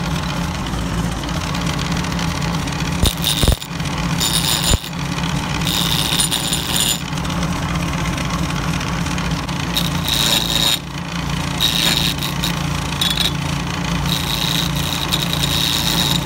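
1940s Powermatic wood lathe running with a steady hum while a turning tool cuts the spinning segmented wooden bat blank. The cutting comes in repeated stretches of high scraping, and there are two sharp knocks a few seconds in.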